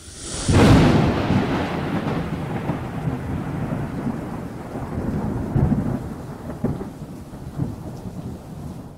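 Thunder: a sudden loud clap about half a second in, then a long rolling rumble with irregular swells over a steady rain-like hiss, fading toward the end.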